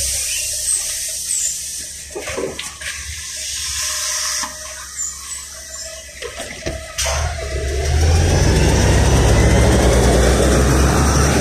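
Air hissing with a few knocks from the stopped LiAZ 5292.67 city bus, then from about seven seconds in its YaMZ-53624 compressed-natural-gas engine rumbling and getting louder as the bus pulls away from the stop.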